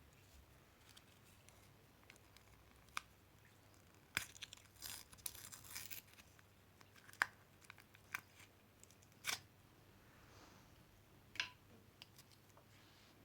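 Alka-Seltzer tablet fizzing in a vase of water: faint crackling with scattered sharp pops, and a denser run of crackles about four to six seconds in.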